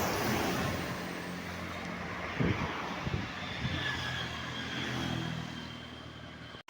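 Bus engine running with road traffic noise, and a few short knocks between about two and a half and three and a half seconds in. The sound cuts off abruptly just before the end.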